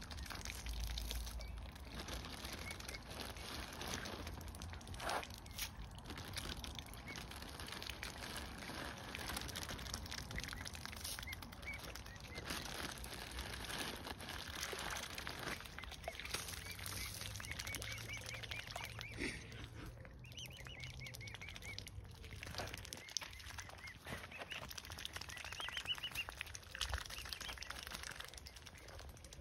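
Mute swan cygnets giving runs of short, high peeping calls while the family dabbles in shallow water at the shore.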